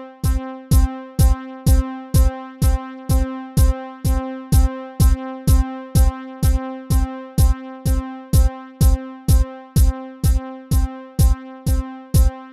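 Drum-machine kick drum in a steady pattern of about two beats a second, under a sustained single-note synth string line from Reaktor. The string line is sidechained to the kick by the SideKick5 plugin, so it dips and swells back in time with every kick.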